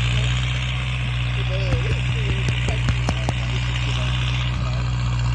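Massey Ferguson tractor's diesel engine running steadily, with a few light clicks in the middle and faint voices.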